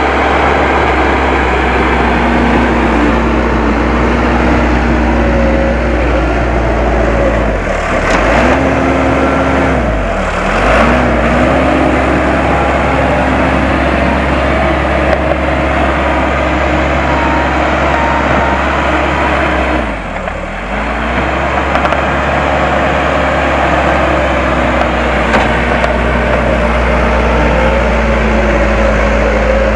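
Case 580 M backhoe loader's diesel engine running steadily at working revs, its speed sagging briefly and recovering three times, about eight, ten and twenty seconds in.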